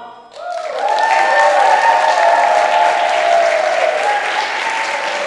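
Audience applause and cheering, starting suddenly about a third of a second in and holding steady and loud.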